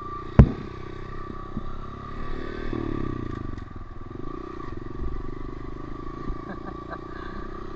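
Honda CRF125F's air-cooled single-cylinder four-stroke engine running at low, steady speed under light throttle, rising slightly a few seconds in. A single sharp knock about half a second in.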